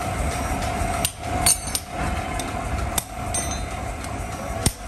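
Hand hammer striking red-hot iron on an anvil in forging: about five separate, irregular blows, the sharpest with a ringing clink about a second and a half in. A steady machine hum with a constant tone runs underneath.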